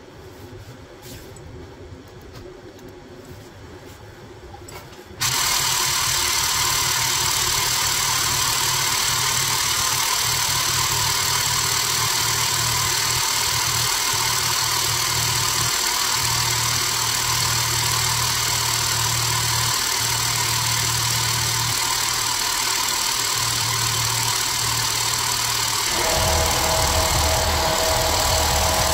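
Hydraulic press pump motor switching on suddenly about five seconds in and running steadily with a hum and hiss as the ram crushes tin cans. Near the end its note changes, with a deeper hum and a steady whine added, as the press works against the cans.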